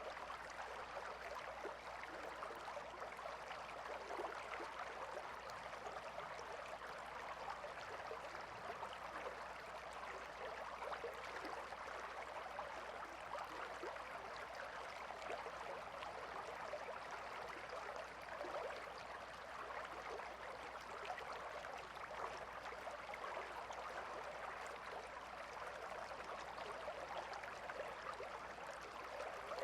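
A calm river flowing: a steady, even rush of running water, flecked with small trickles and splashes.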